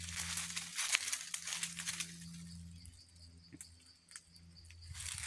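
Leaves and twigs rustling and crinkling as fruit is picked by hand from a tree branch, with a few small snaps. Louder in the first two seconds, then quieter.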